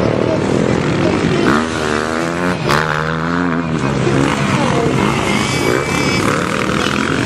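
Motocross bikes racing, engines revving up and down; one engine's pitch swings up and down between about one and a half and four seconds in.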